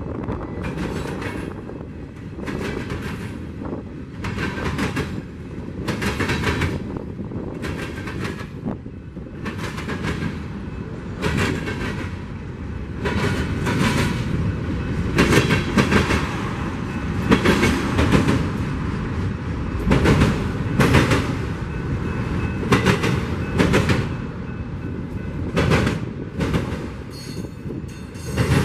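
Mixed freight train cars (gondolas, a boxcar, autoracks) rolling past, with a steady rumble and the wheels clacking over the rail joints about once a second.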